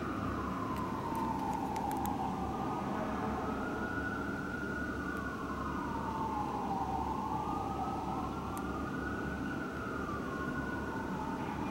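Fire engine's siren wailing, its pitch rising and falling slowly, about once every five seconds, over a steady low rumble.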